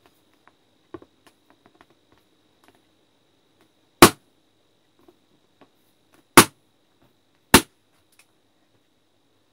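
Balloons burst with a pin, three sharp pops: the first about four seconds in, the second about two and a half seconds later, the third a second after that. Faint small clicks of the balloons being handled come before the first pop.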